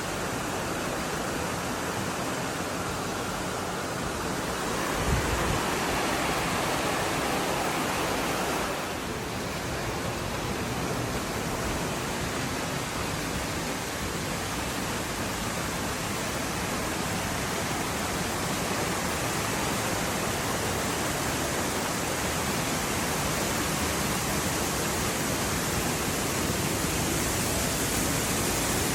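Steady rushing water, an even hiss that holds without a break. There is a brief low thump about five seconds in.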